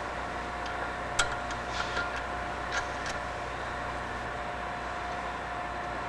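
A few light metallic clicks and clinks of tools and parts being handled, the sharpest about a second in and the rest over the next two seconds. This is most likely the hydraulic jack being fitted to the turbocharger rotor shaft. Under them runs a steady hum with a faint constant high whine.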